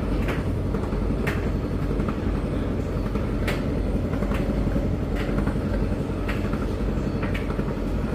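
Hoover tumble dryer running, its drum turning with a steady low rumble while buttons or zips on the tumbling clothes knock against the drum every second or two.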